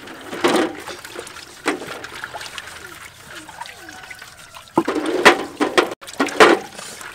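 Wet, peeled boiled duck eggs being handled and set down on a metal tray, with water dribbling and splashing. A few louder bursts of sound come about five and six and a half seconds in.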